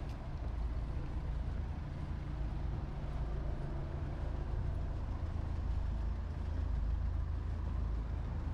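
Road traffic: a steady low rumble of passing motor vehicles.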